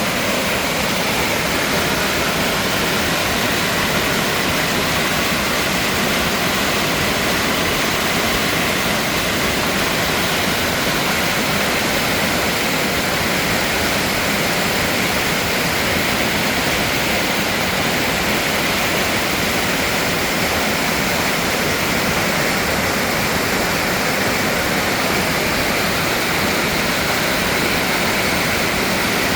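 Mountain stream water rushing over rocks, a steady, even rush.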